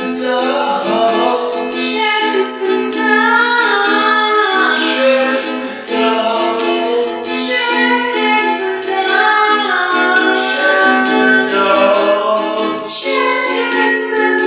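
Music: a song with a sung melody over steady instrumental accompaniment.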